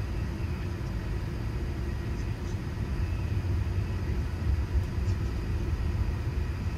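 Steady low rumble inside the passenger cabin of an Airbus A380 on the runway with its engines running.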